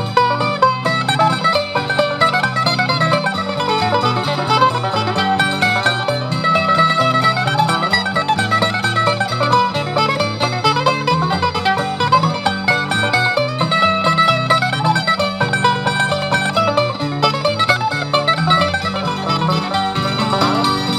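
Old-time country string band playing a lively instrumental tune: quick plucked-string melody notes over a steady, moving bass line.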